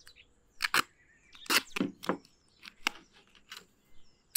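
Duct tape ripping off the roll in a run of short, sharp pulls.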